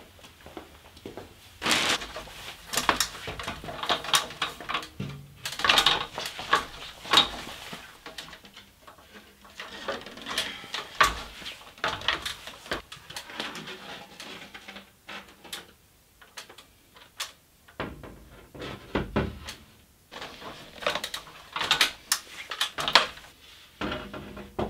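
Irregular knocks, clicks and rustling of gear being handled, with clanks and thumps from a metal stepladder being climbed and stood on; a few heavier low thumps come in the last third.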